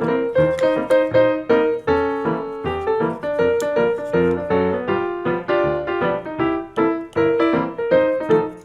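Background ragtime piano music with a bouncing bass line and a steady beat.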